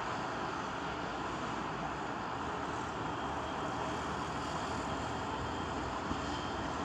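Steady running noise of a crane's engine, even throughout with no distinct knocks or changes.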